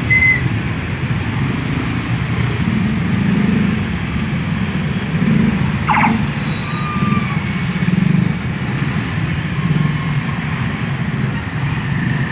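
Scooters and small motorcycles passing slowly one after another, their engines swelling and fading over street traffic. A few short high tones cut through, one of them falling quickly about six seconds in.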